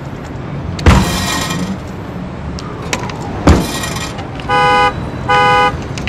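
Two sharp thumps, then a car horn honking twice, two steady blasts of about half a second each near the end.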